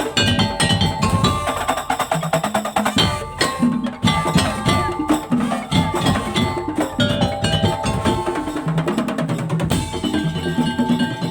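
Madurese tong-tong (daul) ensemble playing: rapid interlocking strikes on wooden slit drums and drums under held pitched notes, in a fast, dense rhythm.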